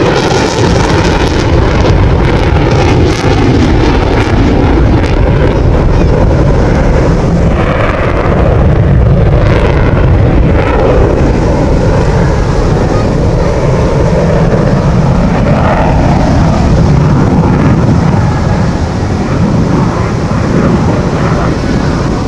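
Eurofighter Typhoon's twin EJ200 turbofan engines running loud at high power with afterburner: a continuous deep jet rumble.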